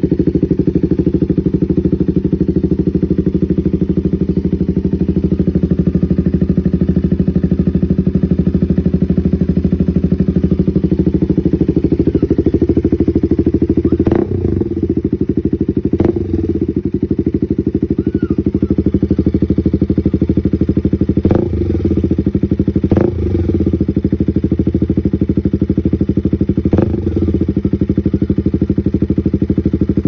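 KTM Duke 200's single-cylinder engine idling through an aftermarket SC Project slip-on exhaust. It is blipped briefly five times in the second half, each blip with a sharp crack from the exhaust.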